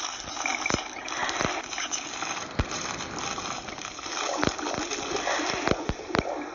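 A dense rushing hiss with many sharp clicks and crackles scattered through it, an overwhelming layer of noise in a sound-art piece meant to evoke auditory hallucinations.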